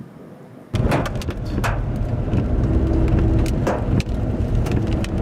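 Faint hiss, then about a second in a sudden cut to the inside of a moving car: steady road and engine rumble, with scattered sharp taps of raindrops hitting the windshield.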